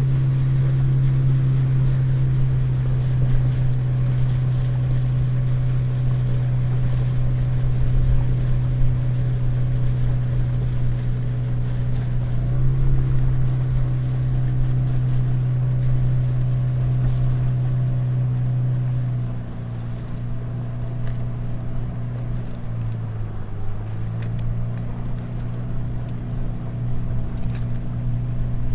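Motorboat engine running at a steady pitch with water rushing along the hull. About two-thirds of the way through it is throttled back: the engine becomes quieter and its pitch drops and wavers.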